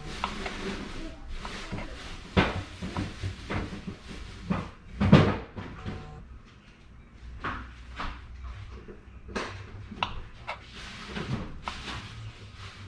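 Kitchen knife slicing hot dogs on a cutting board: irregular knocks of the blade striking the board, slow and uneven, the loudest about five seconds in.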